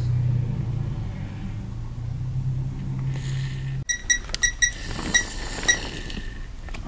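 Digital torque wrench beeping as its buttons are pressed to set a torque value: a quick run of short, high beeps, then two more spaced apart. Before that, a steady low hum that cuts off abruptly.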